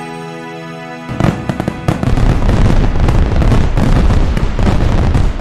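A held music chord, then about a second in fireworks start going off: rapid crackling pops and low booms, dense and loud.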